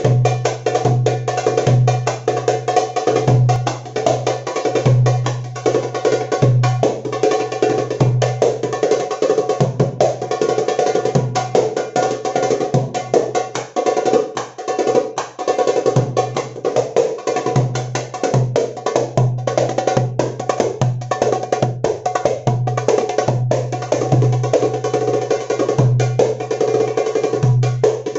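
Music led by an Egyptian tabla (darbuka) drummed in fast, dense strokes and rolls, over a low pulsing beat.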